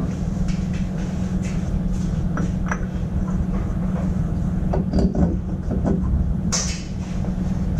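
Steady low workshop hum, with light clicks and knocks as a GasGas 125 two-stroke cylinder is handled and slid onto the engine. A short hiss comes near the end.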